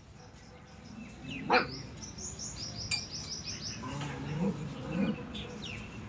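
A puppy gives a single sharp bark about a second and a half in. A bird follows with a rapid run of high chirps, about six a second, and a few soft low sounds come near the end.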